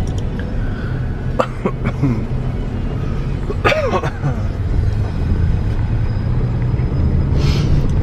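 Steady low rumble of a Toyota car's engine and tyres heard inside the cabin while driving. A passenger makes a couple of short throat or mouth sounds, about one and a half and four seconds in.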